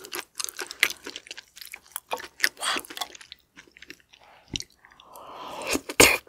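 Close-miked chewing of raw shrimp with sea cucumber innards: wet mouth clicks and smacks. About five seconds in, a longer wet sound builds to a loud smack as the next piece goes into the mouth.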